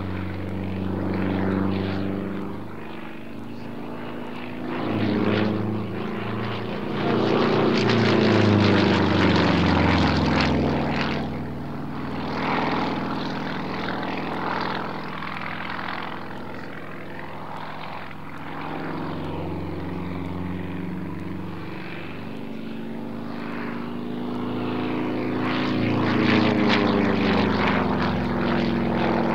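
Yak-52's nine-cylinder M-14P radial engine and propeller running through aerobatic manoeuvres. The engine note rises and falls in pitch as the aircraft swells louder and fades, loudest about a third of the way in and again near the end.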